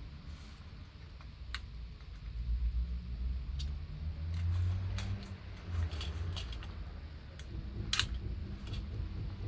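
Low rumbling handling noise with a handful of scattered sharp clicks, the loudest one near the end.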